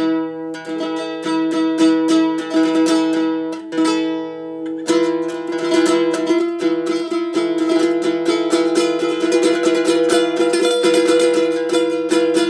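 A biwalele, a biwa–ukulele hybrid instrument, played with a pick: separate plucked notes over a steady drone of ringing strings. About five seconds in, the playing changes to fast, dense repeated picking.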